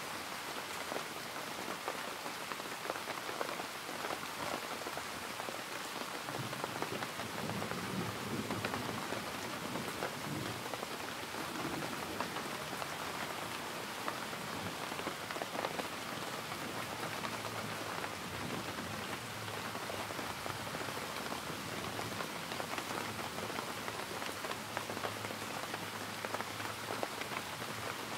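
Steady rain falling, an even patter. About six seconds in, a low rumble joins it and carries on underneath.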